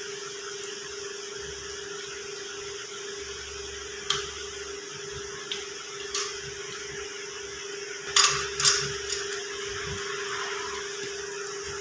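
A few short metallic clinks of hand tools on a tractor gearbox housing, the two loudest close together about eight seconds in, over a steady background hum.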